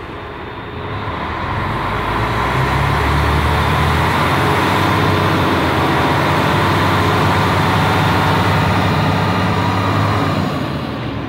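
Mercedes-Benz Axor truck's diesel engine run up and held at raised revs, a steady heavy drone that builds over the first couple of seconds and eases off near the end. The engine is being heated to test the viscous fan clutch, which is still disengaged at about 83 °C: the fault behind the overheating.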